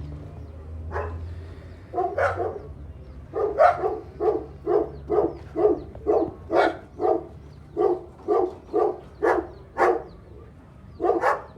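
A German Shepherd dog barking: a few single barks, then a steady run of short, deep barks at about two a second.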